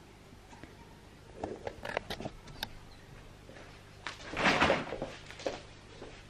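Scattered light knocks and clicks, then a short, louder scraping noise about four seconds in: a door being worked as someone leaves the room.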